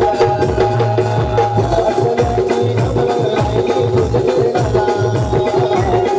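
Band music with a steady drum beat under a sustained melodic line, played by a hired orchestra band.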